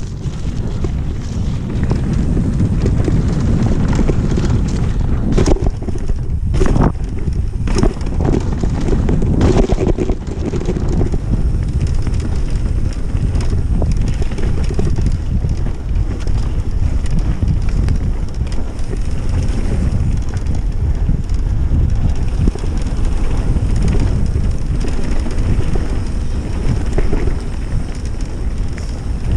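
Wind buffeting the microphone during a fast mountain bike descent, with the tyres rumbling over the trail. A few sharp knocks and rattles from the bike come about five to ten seconds in.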